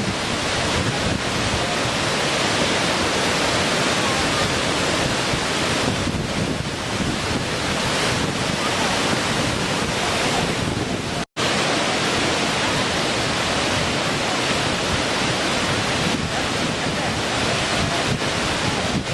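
Small waterfall splashing, a steady rushing of falling water. The sound cuts out completely for an instant about eleven seconds in, then resumes unchanged.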